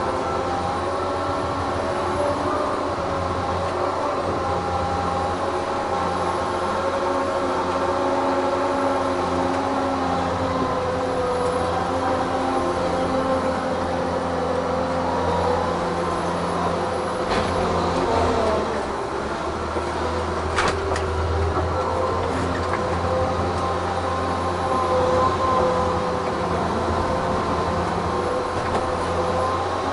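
Tigercat 1075B forwarder's diesel engine running steadily, heard from inside the cab as a loud droning hum, with a short dip in engine note and two sharp knocks a little past halfway.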